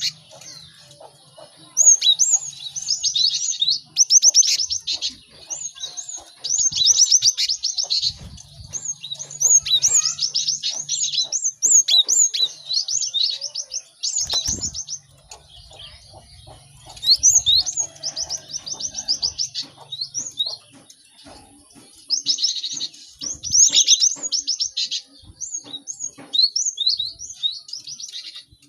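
Several cinereous tits (gelatik batu) singing busily, in runs of rapid high chirps and sweeping notes that break off and start again every second or two.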